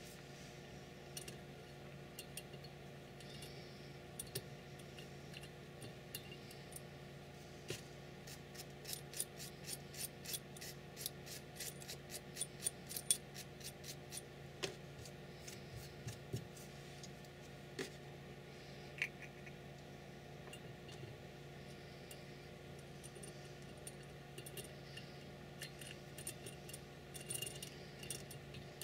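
Faint, light metallic clicking and ticking from small hand tools: a quick run of clicks in the middle and a few more near the end, as a tap in a T-handle wrench is worked in an aluminium heatsink. A steady low hum runs underneath.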